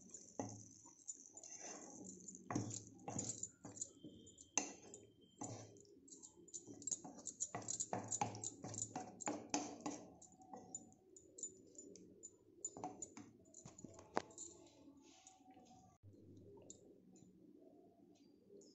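Wooden spatula stirring a thick dry-fish thokku in a nonstick pan as it cooks down until the oil separates: faint, irregular clicks and pops, thickest over the first ten seconds and thinning out after about fourteen seconds.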